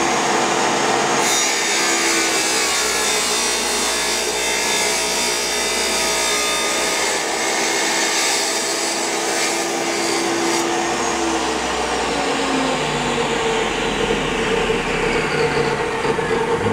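DeWalt wet tile saw running steadily, its diamond blade cutting a thin sliver off a tile that is backed by a board so the sliver does not break.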